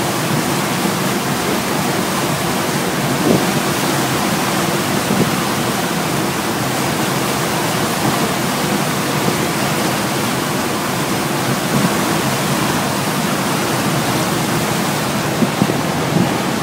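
Steady rushing of churning wake water behind a passenger ferry under way.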